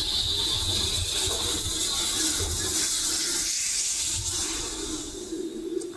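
Steady hiss of steam from a steam locomotive passing beneath, over a low rumble of the train that dies away after about three seconds. The hiss eases off near the end.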